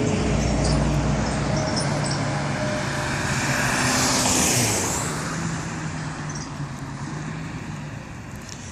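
Road traffic noise, with a vehicle passing close by about four seconds in; the noise then slowly fades.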